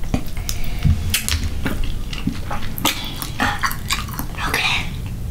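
Close-miked eating of mussels: wet mouth sounds and chewing, with sharp clicks of the shells being handled and pulled apart over a glass bowl.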